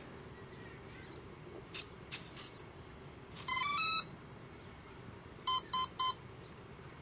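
Brushless RC airplane's electronic speed controller sounding its power-up beeps through the motor after a 3-cell lipo is plugged in: a few clicks near the start, a short rising run of tones about three and a half seconds in, then three short beeps, typical of the controller counting a 3-cell pack.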